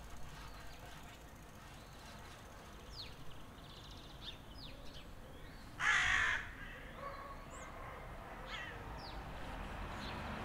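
Birds calling outdoors with short, scattered chirps, and one loud, harsh call lasting about half a second around six seconds in.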